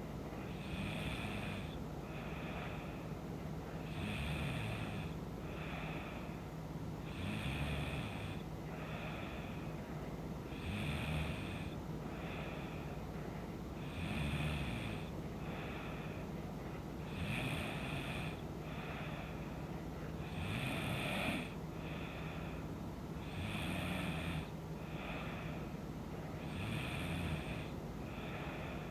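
A woman snoring in her sleep, one breath cycle about every three seconds: a louder snore, then a softer breath. A steady low hum runs underneath.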